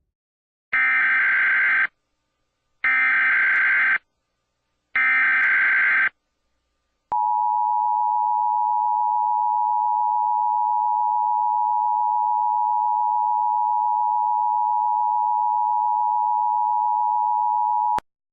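Emergency Alert System header: three bursts of warbling digital data tones, each about a second long, followed by the steady two-tone EAS attention signal, which holds for about eleven seconds and cuts off suddenly.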